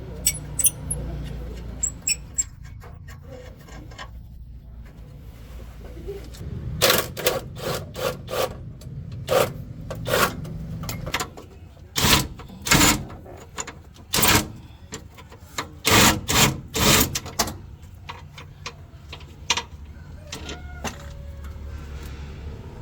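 Hand tools working on metal during a heavy truck's clutch and gearbox job: an irregular run of sharp knocks and short scraping strokes, bunched in the middle, over a low steady hum.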